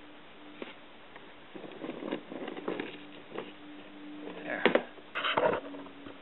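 Clatter and knocks of a clear plastic cup being handled, with a sharp knock and a short scrape about four and a half to five and a half seconds in as the cup is set down on a concrete floor. A faint steady hum runs underneath.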